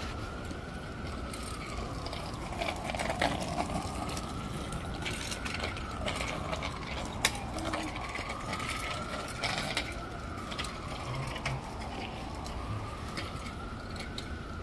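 An emergency vehicle siren wailing, rising and falling slowly about once every four and a half seconds, over a steady hum of street traffic, with scattered light clicks and rattles.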